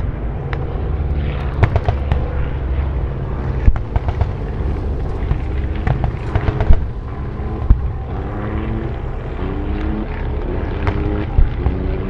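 Distant battle-reenactment ambience: a steady rumble of engines whose pitch rises now and then, with scattered gunshots and heavier bangs of explosions.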